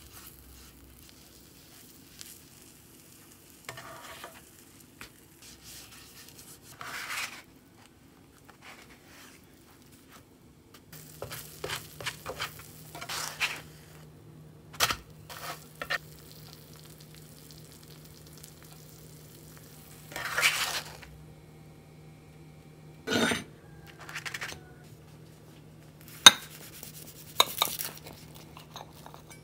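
Cooking in a nonstick frying pan: butter sizzling, with a brush and spatula scraping and tapping the pan in short bursts. Near the end a knife cuts through the toast with a sharp click against the plate.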